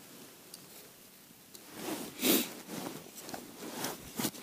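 Close rustling and handling noises: a padded jacket and a small plastic box being moved about in the hands. A few short scuffs come in the second half, the loudest a little past halfway.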